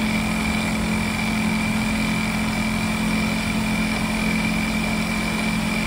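Sewing head of an S-CT23-L01 automatic curtain hemming machine running steadily at speed while stitching a curtain hem, with an even low hum and a steady high whine.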